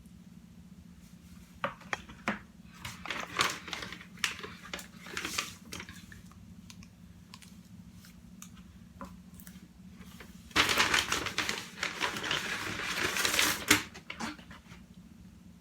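Food packaging being handled and opened: a few sharp clicks, then bursts of rustling, and about ten seconds in a longer stretch of loud crinkling lasting about three seconds, over a faint steady low hum.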